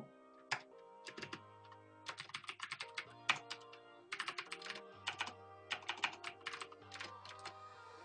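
Typing on a computer keyboard: quick runs of key clicks with short pauses between them, over background music with steady held tones.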